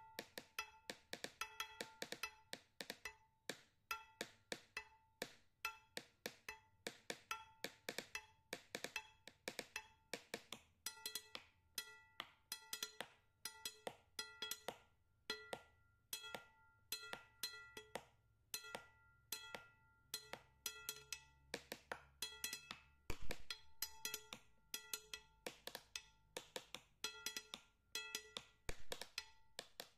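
Faint background music made of short, woody struck notes in a quick, steady rhythm, with one louder low thump about three-quarters of the way through.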